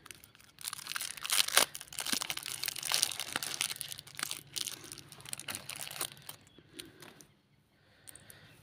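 Small clear plastic toy wrapper crinkling and crackling as it is handled and opened. The crackling dies down about six seconds in.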